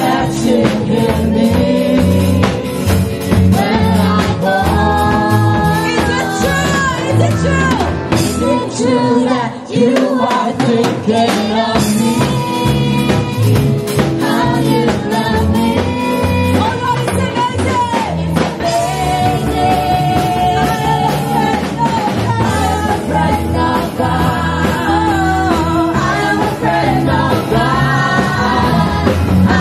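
Live worship band playing a rock-style praise song, a singer's voice carrying the melody over drums.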